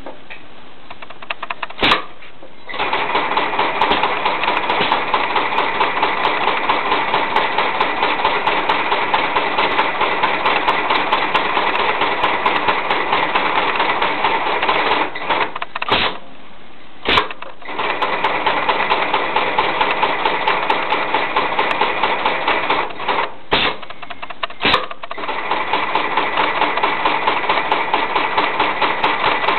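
Highlead GA1398 long-arm heavy-duty sewing machine stitching lifting-sling webbing in a fast, even rhythm. The machine starts a couple of seconds in and pauses twice briefly, with a sharp click at each stop and restart.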